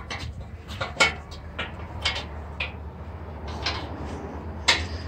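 Irregular metal knocks and clanks from the steel legs and frame of a barbecue made from a buffer tank as they are handled, about eight in five seconds, the loudest near the end. A steady low hum runs underneath.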